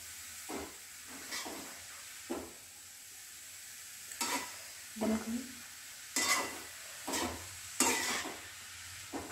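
Metal spatula stirring and scraping chopped radish and radish greens in a metal kadhai, about nine strokes at an uneven pace, over a faint steady sizzle.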